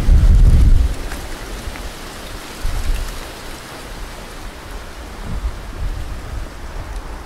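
Wind buffeting the microphone of a handheld camera outdoors: a loud low rumble in the first second, then weaker gusts over a steady hiss.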